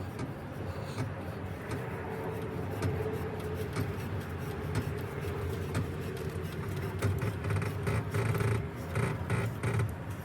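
Car jack being turned by its hand crank, raising the car until the wheel clears the ground, with a run of small clicks near the end.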